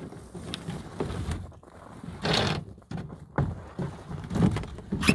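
Moonbike electric snow bike driven up a wooden loading ramp with angle-iron supports, its track clattering and knocking on the ramp in irregular bursts, with several loud bangs about two, four and a half and five seconds in.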